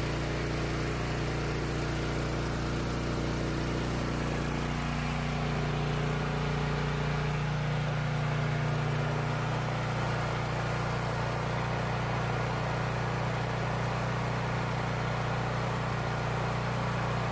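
Honda-powered Ridgid portable generator running steadily on natural gas after its conversion, a constant engine hum with no change in speed.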